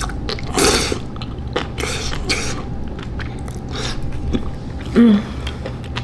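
A person eating saucy spicy noodles close to the microphone: a few short slurps and chewing, with small clicks. A brief voiced sound like a hum comes about five seconds in.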